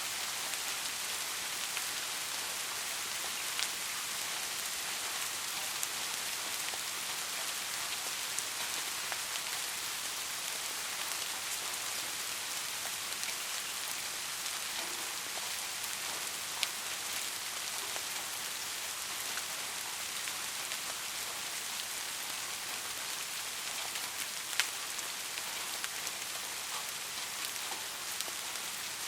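Heavy rain falling steadily, a dense even hiss, with a few louder single drop ticks standing out.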